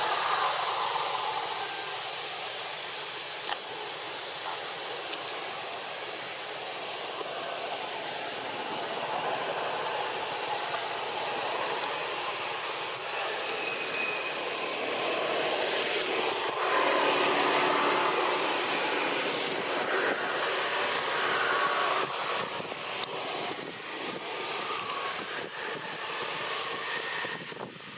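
Steady outdoor background noise, an even hiss with no clear single source, with a few faint brief tones.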